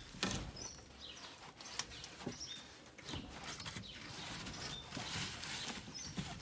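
Rustling and light knocks as dry straw bedding and wooden rails are handled, with scattered short, high chirps.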